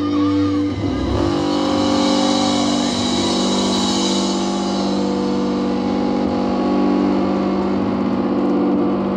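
Distorted electric guitars and bass of a live metal band holding one sustained chord that drones on steadily, the song's final chord left ringing.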